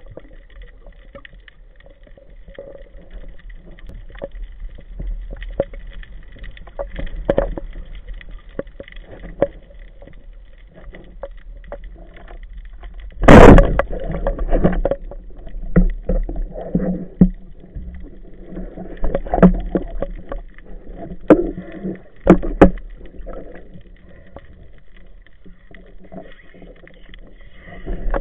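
Underwater sound picked up by a camera mounted on a speargun: a low steady rumble with scattered clicks. About 13 seconds in, the speargun fires with one loud, sharp crack, followed by repeated knocks and clatters of the gun and its shooting line being handled.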